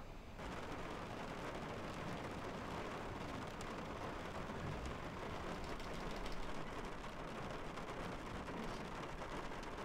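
A steady, even rushing noise begins about half a second in.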